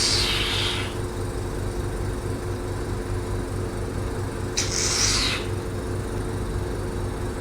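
Microdermabrasion machine's vacuum pump running with a steady, pulsing hum, with two short hisses of air, one fading out about a second in and another about five seconds in.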